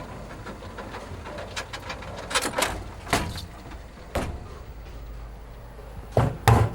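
Irregular knocks and clatters over a steady low hum, the two loudest thumps coming close together near the end.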